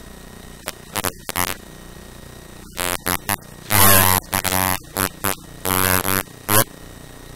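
A man's voice talking in short phrases with pauses between them, the recording buzzy and distorted.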